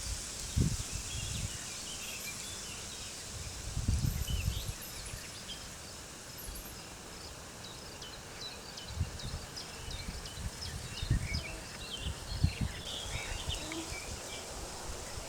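Birds chirping with many short, quick calls over a steady high hiss, while wind rumbles in gusts, once about four seconds in and again for a few seconds past the middle.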